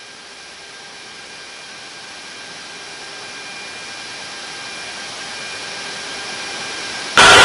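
Jet patrol aircraft's turbofan engine and cabin noise: a steady rushing hiss with faint steady whining tones, slowly growing louder, from a Kawasaki P-1. Near the end it jumps suddenly to a much louder rush.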